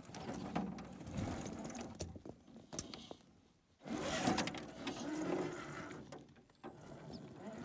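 Axial SCX10 II RC crawler's electric motor and geared drivetrain whirring as it climbs rocks, with scattered clicks; it stops briefly a little past the halfway point, then starts again louder.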